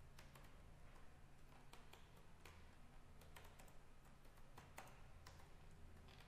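Faint computer keyboard keystrokes: irregular clicks as a line of code is typed, over a low steady hum.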